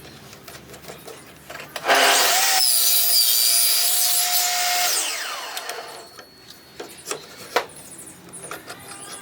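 A power tool cuts into wood for about three seconds, loud and noisy with a thin whine, then fades away. Lighter knocks and scraping of wood follow.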